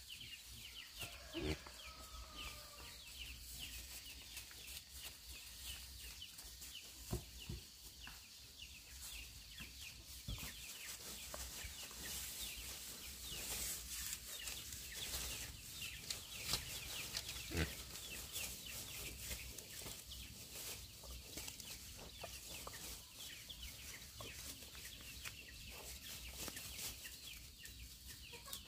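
Chickens clucking, with many short high calls and a few scattered clicks over a steady high hiss.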